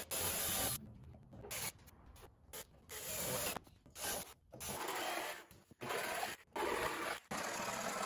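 Cordless drill boring starter holes through thin lauan plywood in several short bursts, each a few tenths of a second to nearly a second long. Near the end a corded jigsaw starts cutting the plywood and runs steadily.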